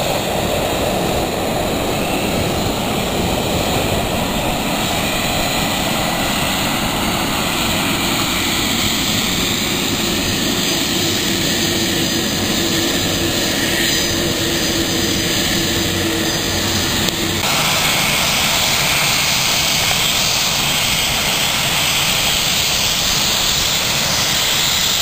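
Aircraft engines running at an airfield: a steady, loud rushing noise with a faint held hum partway through. The sound changes abruptly about two-thirds of the way in.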